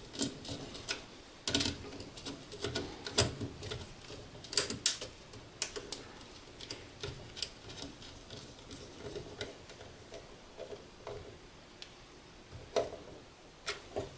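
Small screwdriver turning a terminal screw on a contactor, with wire handling around it: irregular light clicks and ticks, thicker in the first few seconds, then sparser and fainter.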